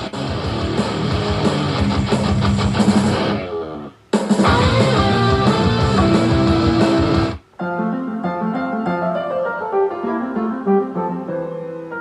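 Guitar-led music cut together from different tracks. A dense, full-sounding passage breaks off abruptly about four seconds in and starts again, then about halfway through gives way to a lighter piece of clear, separate plucked and keyboard notes.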